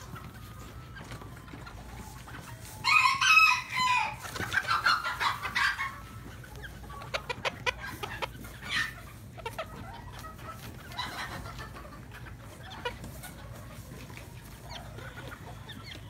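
A rooster crows once, starting about three seconds in and lasting about three seconds, followed by scattered short clucks from chickens.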